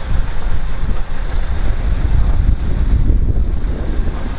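Engine of an off-road 4x4 running as the vehicle works in a flooded mud hole, trying to back out, heard as a heavy, uneven low rumble.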